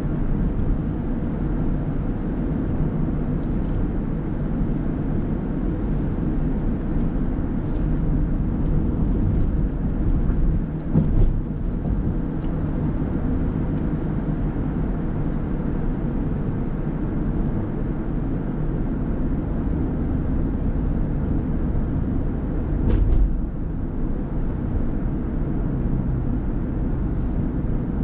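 A car driving: a steady low rumble of engine and tyre noise on the road. Two short knocks come through, about a third of the way in and again near the end.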